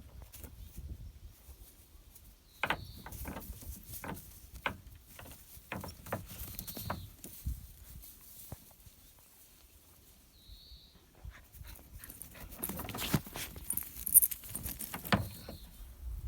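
Dog sounds among scattered clicks and knocks, with a short high note that comes back about every four seconds.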